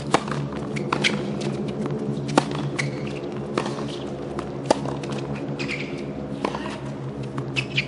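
Tennis serve and baseline rally on a hard court: the ball struck by racket strings and bouncing, sharp pops coming about once a second. A steady low hum runs underneath.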